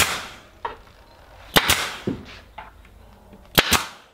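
Staple gun driving staples into glued drawer parts: sharp cracks, one at the start, one about a second and a half in, and two in quick succession near the end, with lighter knocks between.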